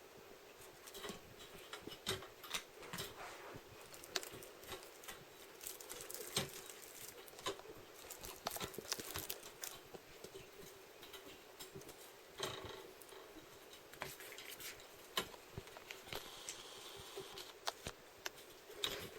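Faint, irregular taps, clicks and scratches of kittens' paws and claws as they move about.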